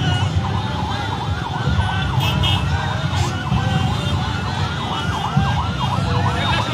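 An escort siren wailing in quick up-and-down sweeps, about three a second, over the low rumble of traffic and engines.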